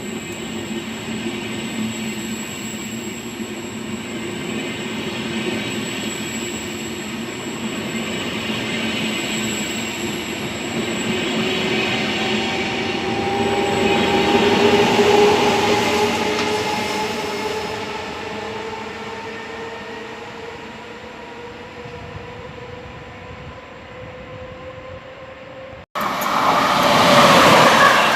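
Electric train running past, its motors whining in several tones that rise slowly in pitch as it picks up speed; it grows louder toward the middle and then fades. Near the end it cuts abruptly to a louder rumble of another passing train.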